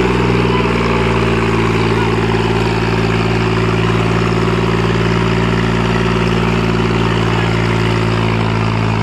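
New Holland 5500 tractor's diesel engine running steadily at idle, an even, unchanging drone.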